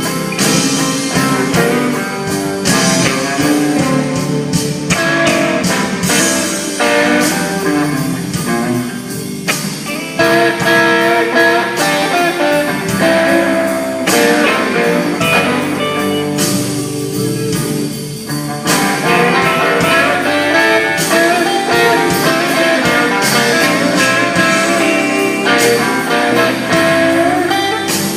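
Blues-rock music played by a band, with guitar to the fore.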